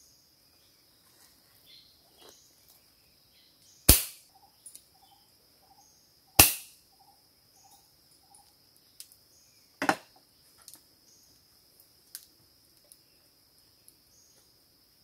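Two sharp cracks about two and a half seconds apart, each ringing out briefly, from a handmade slingshot being shot, with a smaller double knock later on. A steady high insect drone runs underneath.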